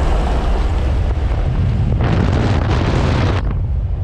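Loud, steady low rumble inside the cab of a lifted Ford pickup with a 6.0 diesel, driving over rough ground; a hissing rush swells about two seconds in and eases off near the end.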